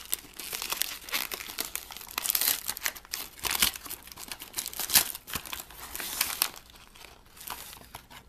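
Paper-and-foil cookie bag crinkling as it is unfolded and opened by hand. There are dense, irregular crackles at first, which thin out and grow quieter for the last second or two.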